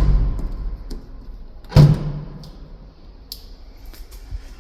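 Škoda Rapid's boot lid shutting onto its newly fitted latch: a heavy thump with a low ringing decay about two seconds in, after the fading clunk of a similar thump right at the start.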